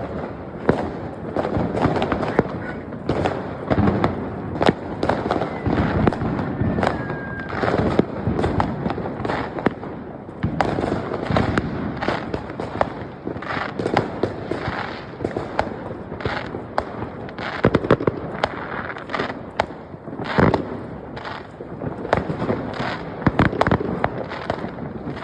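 New Year's Eve fireworks and firecrackers going off all around: a dense, irregular barrage of cracks and bangs, with a short whistle about a third of the way through.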